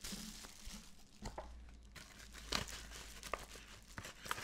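Product packaging crinkling and rustling as it is handled, with a few small sharp clicks.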